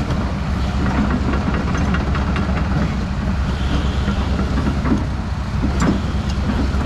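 Diesel engine of a Hyundai R245LR long-reach hydraulic excavator running steadily, with a couple of sharp knocks near the end.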